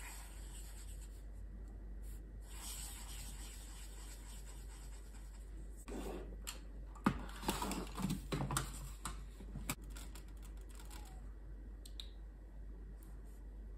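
Soft sound of a Tombow dual brush pen's felt tip rubbing and dabbing on notebook paper. A cluster of clicks and knocks follows around the middle as pens are handled and a metal watercolour paint tin is set on the desk.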